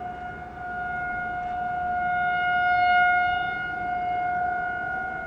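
Federal Signal Thunderbolt 1000BT outdoor warning siren sounding a steady single tone during a siren test, heard from a distance. It grows louder to a peak about three seconds in, then eases off.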